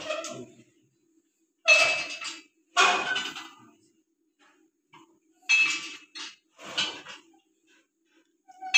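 Metal weights of a leg extension machine clanking as the lifter raises and lowers the roller pad, about six separate clanks, each ringing briefly. A faint steady hum runs underneath.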